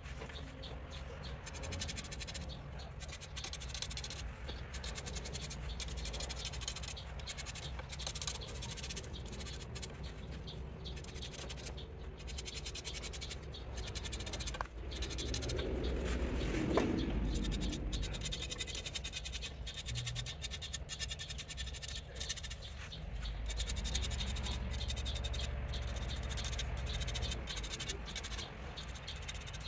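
Marker pen scratching and rubbing over a javelin shaft in short, quick strokes as lines and lettering are drawn on it. A louder rubbing shuffle comes about halfway through.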